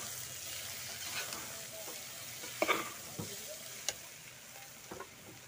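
A spatula scraping and knocking against the inside of a pressure cooker as jackfruit pieces, onion and spices are stirred while frying in ghee, over a faint sizzle. A few separate scrapes, the loudest about two and a half seconds in, with a sharp clink near four seconds.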